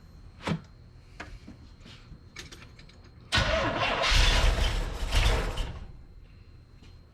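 A few light clicks, then the Corvette's carbureted engine cranks on the starter for about two and a half seconds and dies away without running. It is a no-start that the owner puts down to a fuel problem in the carburetor.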